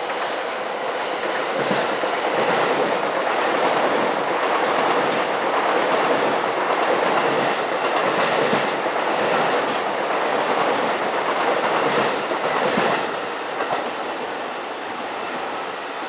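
Electric commuter trains running through the station tracks, wheels clacking on the rails. The noise builds over the first couple of seconds and eases off after about thirteen seconds.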